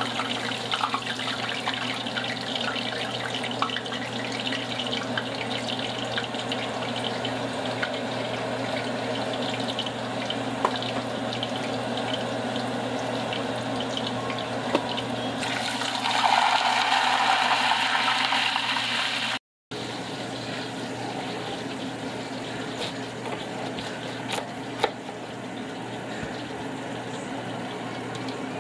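Hot oil sizzling steadily in a small saucepan as food deep-fries. It gets louder and brighter for about three seconds past the middle as a fresh piece goes into the oil, then breaks off suddenly. A quieter steady noise with a sharp knock or two follows.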